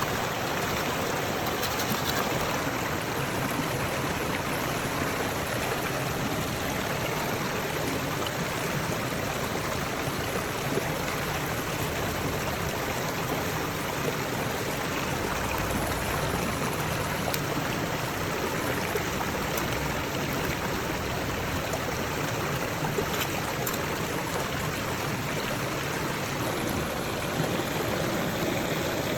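Steady rushing of running water, with no breaks or separate events.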